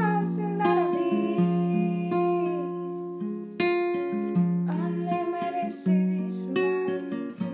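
Acoustic guitar strummed in slow chords, a strum about every second, each left to ring and fade before the next.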